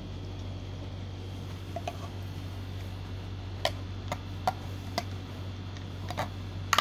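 Sharp clicks and light knocks of a blue plastic inner container against a stainless steel lunch box as it is handled, starting about two seconds in, with the loudest near the end. A steady low hum sits underneath.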